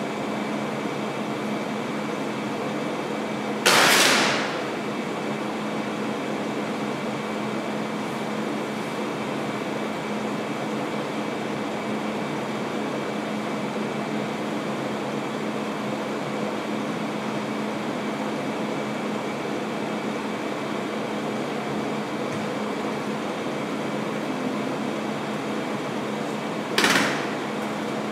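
Adhesive tape ripped off its roll in two short, loud rasps, about four seconds in and again near the end, over a steady air-conditioning hum.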